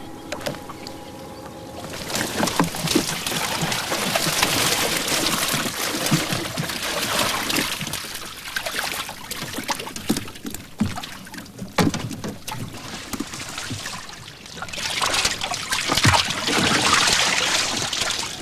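Water splashing and sloshing as fish are handled in the flooded fish well of a small fishing boat, with scattered knocks against the boat. It starts about two seconds in and eases briefly near fourteen seconds before picking up again.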